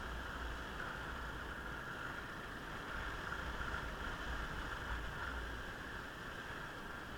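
Steady wind and running noise of a motorcycle on the move, with a low rumble underneath that swells a little at times.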